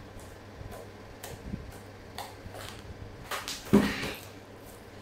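White slime being pressed and kneaded by hand, giving small scattered clicks and crackles, with one louder, longer sound a little under four seconds in.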